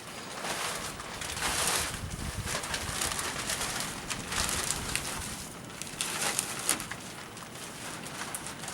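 Gusty wind with rustling, swelling and fading every second or two.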